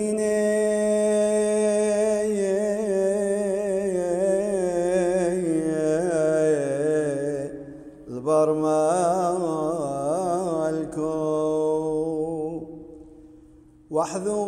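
Solo male voice chanting a slow, ornamented liturgical melody over a steady low drone, in two long phrases. The second phrase fades out about twelve seconds in, and the singing starts again near the end.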